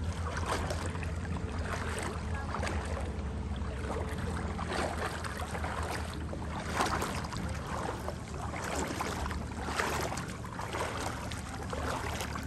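A small engine running steadily, with rushing, splashing water noise coming in surges every second or so.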